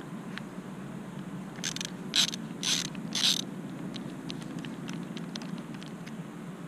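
Ratcheting screwdriver with a number one Phillips bit backing out a screw: four short bursts of ratchet clicking about two to three seconds in, then a run of faint single ticks.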